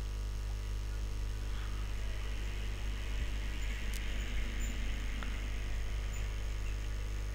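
Steady electrical mains hum with a faint hiss on the recording, and a single faint click about four seconds in.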